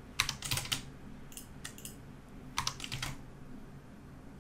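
Computer keyboard keystrokes: quick clicks in three short bursts, the sound of keyboard shortcuts being pressed.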